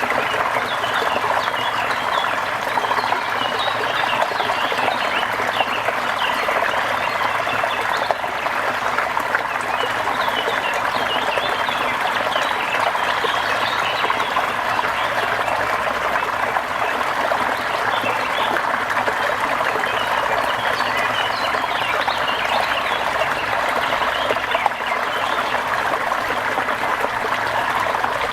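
Steady rain with trickling, running water, and many short high calls from small animals scattered through it.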